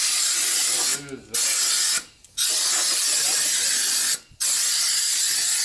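Pneumatic air ratchet running in four short bursts with brief pauses between, a dense hiss of exhaust air over the ratcheting, as it tightens a bolt on the turbocharger.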